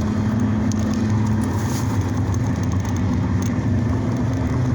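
Steady low rumble of a motor vehicle's engine and road noise coming in through an open window, with a few faint clicks.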